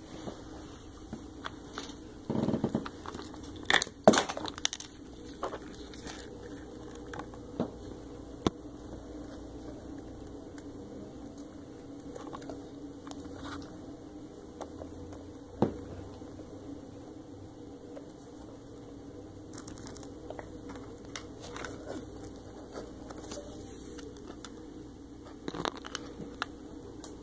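Small scratches, clicks and crinkles as a pet hamster scrabbles about among plastic toys and cereal pieces, with a few louder knocks, the biggest a few seconds in and another about halfway. A steady low hum lies underneath.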